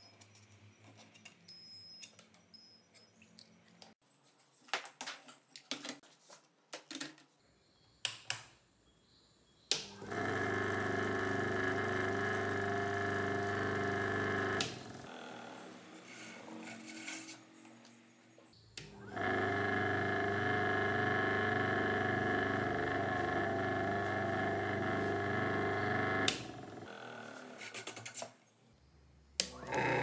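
Washing machine spin-extractor motor of a home-made disc sander switched on twice, running for about five and then seven seconds with a steady hum and a higher whine, stopping abruptly each time. Clicks and short bursts come before the first run.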